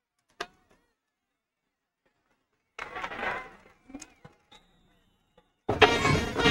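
Near silence broken by a sharp click and a short muffled noise, then loud music cuts in abruptly near the end.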